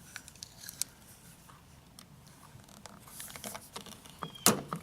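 Scattered light clicks and taps of hand work on a van's plastic fuel door collar and its lock, with one sharp click about four and a half seconds in.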